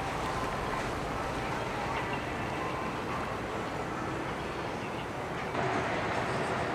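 Steady outdoor noise of boat engines running on the water, growing a little louder about five and a half seconds in.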